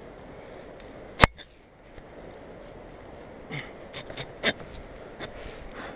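Sharp metallic clicks and clinks of climbing hardware (carabiners and a rope pulley) against a steel zipline cable as the climber hauls himself along by hand: one loud click about a second in, then a few lighter clinks around the middle. The pulley is built for rope, not cable, and has stalled on the cable.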